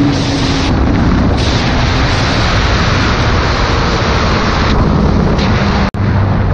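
Heavy wind rushing and buffeting over the microphone on a Honda sport motorcycle ridden at high speed, with the engine faintly underneath. A sudden cut about six seconds in brings a lower, steady engine note.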